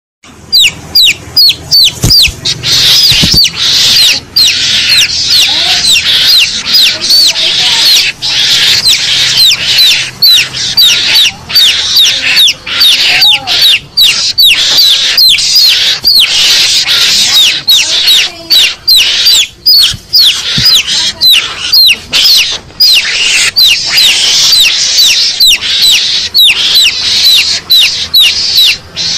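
Garangan (Javan mongoose) lure call: a recording of rapid, high-pitched squealing chirps, many a second, each sliding downward in pitch, played loud and without a break, the agitated fighting calls meant to draw mongooses in.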